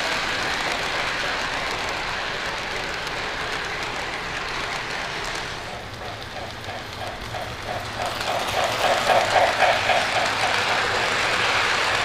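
Lionel O gauge model train rolling on FasTrack, its running noise fading as it passes. From about six seconds in, a rhythmic beat of about four pulses a second grows louder as the steam locomotive comes round the oval again.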